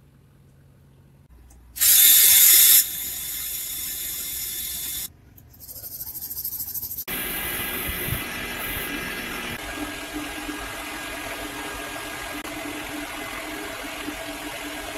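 A motor-driven buffing wheel runs steadily while a threaded steel rod is held against it to clean up the threads. It follows a short loud noisy burst about two seconds in and a break in the sound around seven seconds.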